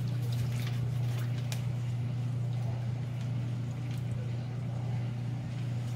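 Plastic spoon stirring liquid jello in a stainless steel bowl, with scattered light clicks and scrapes against the metal, over a steady low hum.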